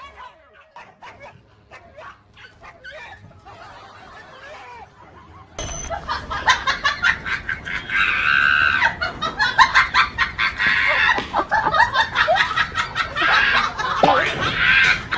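After a quiet start, a broody hen with chicks gives loud, repeated squawking alarm calls in bursts as she faces off a puppy.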